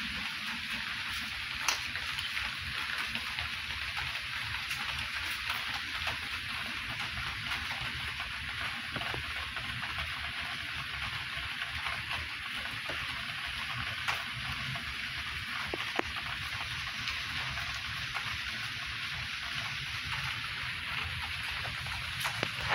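Steady crackling rustle of kittens' paws scrabbling over a plastic-backed puppy pad in a plastic box, with a few sharp clicks.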